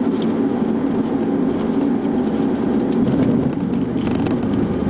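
Steady cockpit noise of a jet airliner rolling along the runway: engine and air noise without a break.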